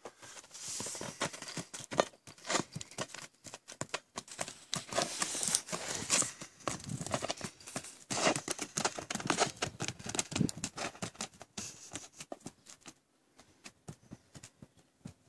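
Irregular crunching and scuffing steps on dry gravelly dirt, with scattered knocks, as a donkey foal trots after and nudges a plastic ball. The sound dies down near the end.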